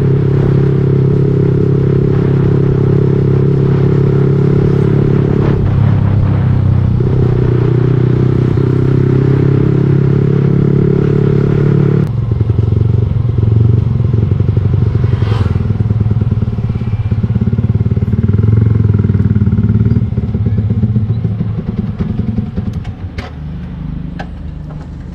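Motorcycle engine running steadily while being ridden. About twelve seconds in the note drops to low revs and turns uneven and pulsing, then gets quieter over the last few seconds. The owner says the bike stutters and hesitates at low speed, as if something is clogged.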